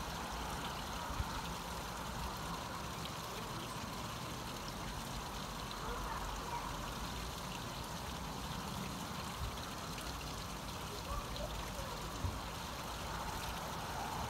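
Steady background hiss and low rumble of outdoor ambience, with no distinct event standing out.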